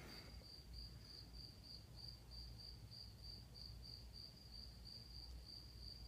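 Near silence with a faint cricket chirping, a high chirp repeating evenly about three times a second.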